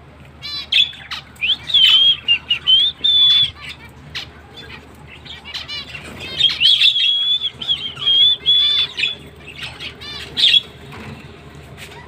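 Zebra finches calling with short, repeated chirps, answering a person's whistling. The whistle is a long wavering high note, heard about a second in and again about six seconds in.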